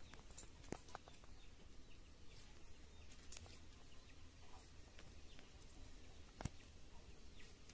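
Near silence: faint outdoor background with a low hum and a few small, sharp clicks and taps, the clearest about a second in and again near the end.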